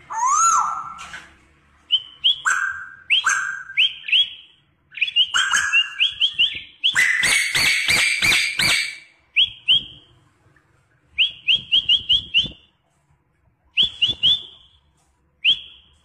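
Caged black-and-white songbird singing: a long rising whistle, then phrases of short, quickly repeated upslurred whistled notes, with a dense run of rapid chattering notes around the middle.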